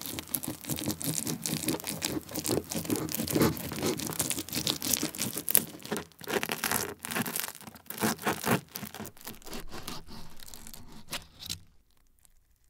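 A knife sawing through a thick deep-dish cheese pizza: the crust crackles and the cheese tears in quick, uneven strokes. The cutting stops shortly before the end.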